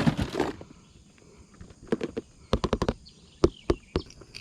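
An irregular run of sharp clicks and knocks, about a dozen packed into the second half, from fishing tackle being handled.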